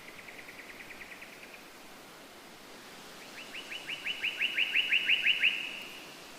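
A songbird singing two rapid trills of short repeated notes, about seven a second. The first is fainter and ends early. The second, louder trill starts a few seconds in and swells toward its end.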